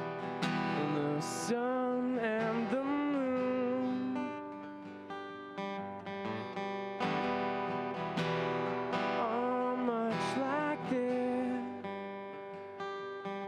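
Strummed acoustic guitar with a man singing over it, a solo singer-guitarist performing. The singing comes in two phrases, one starting about a second and a half in and another around nine seconds in, with guitar chords between them.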